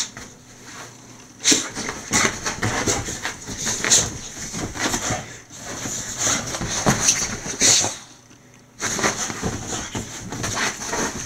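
A boxer dog digging and burrowing in a towel and bedsheets on a bed: irregular rustling and scuffing of fabric mixed with the dog's own noises, with a short lull about eight seconds in.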